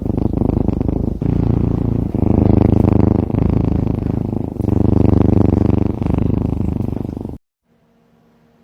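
Cat purring loudly close up, a low pulsing rumble that swells and breaks with each breath in and out, cutting off suddenly near the end.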